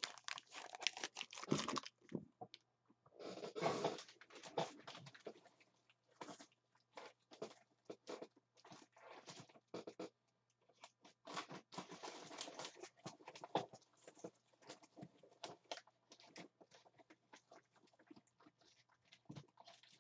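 Faint, irregular crinkling and rustling of plastic or foil packaging being handled, with scattered light clicks and taps. The crinkling is thicker near the start, again about three to four seconds in, and again about twelve seconds in.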